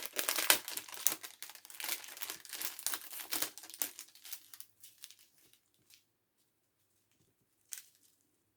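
Packaging of a diamond painting kit's bagged crystals rustling and crinkling as it is handled, dense for about the first four seconds, then dying away, with one short crinkle near the end.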